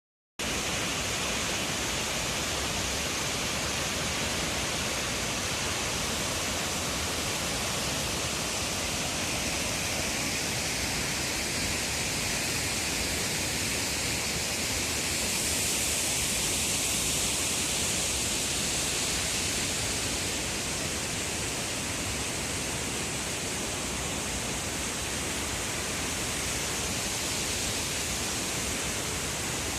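Two-tiered waterfall about 15 m high pouring into its deep plunge pool: a steady rushing of water, a little louder and brighter for a few seconds around the middle.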